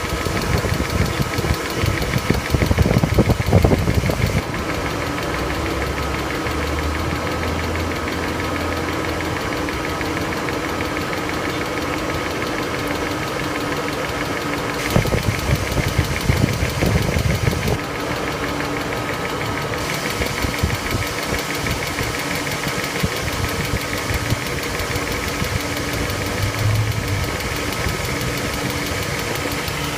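BMW 740iL V8 engine running with a rapid, steady ticking from the valve lifters (tappets): the lifter tick the owner is recording. Louder low rumbling comes in for a few seconds at the start and again around the middle.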